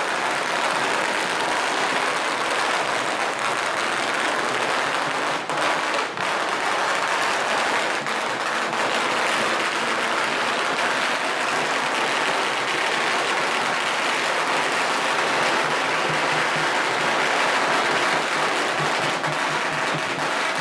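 Strings of firecrackers crackling in a continuous, dense rattle, dipping briefly twice about five and six seconds in.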